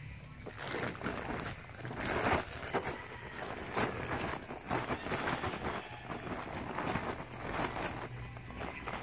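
Rustling and crinkling of a plastic sack as compost mixed with rice hulls is dug out of it by hand, in irregular bursts.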